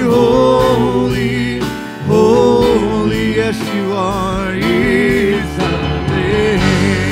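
Live church worship band and singers performing a slow gospel praise song, with voices holding long notes over a steady beat.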